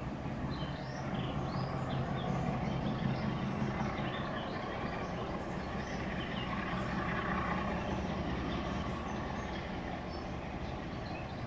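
Class 46 'Peak' diesel locomotive D182 accelerating away hard, its Sulzer twin-bank 12-cylinder engine thrashing under full power with a steady, heavy note that swells a little a few seconds in. Birds are chirping over it.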